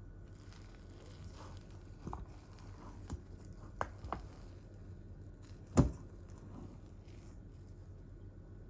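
Quiet room with a few light clicks and taps from objects being handled, and one sharper knock a little past halfway through.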